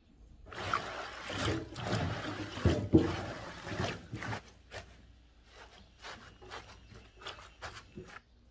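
Water sloshing and splashing in a stainless steel sink as rubber-gloved hands wash rape greens, loudest in the first four seconds. After that come a few light scattered knocks and rustles.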